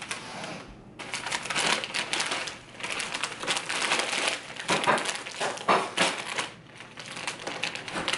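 Crinkly snack-chip bag being handled and opened, a run of crackling plastic rustles.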